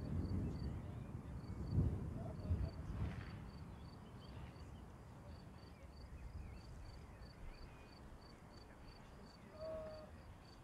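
An insect chirping steadily in a high, even rhythm of about three chirps a second. Under it is a low rumble that is strongest in the first three seconds and then fades. A few faint short whistled notes come near the end.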